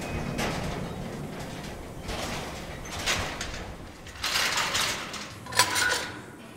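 Mine-shaft lift cage running, with mechanical rattling and sliding that rise and fall in several surges, and a sharp metallic clank near the end.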